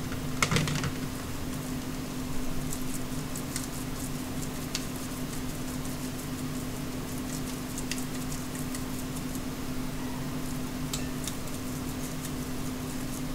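Faint handling sounds of hands pressing ground turkey meatloaf mixture into stoneware bakers: soft scattered taps and clicks, a small cluster about half a second in, over a steady low electrical hum.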